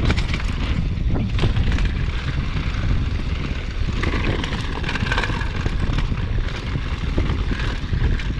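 Mountain bike descending a rough, rocky downhill trail at speed: wind buffeting the microphone as a steady low rumble, with repeated knocks and clatter of tyres and bike over rocks.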